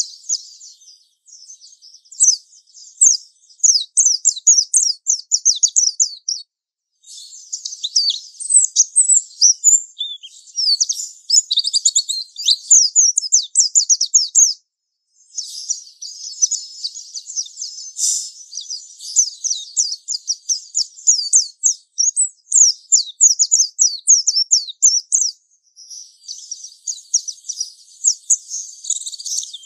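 White-eye (pleci) singing its long, rapid, high-pitched twittering 'ngalas' song in long unbroken runs, pausing briefly three times. This is the song used as a bait call to provoke other pleci into singing.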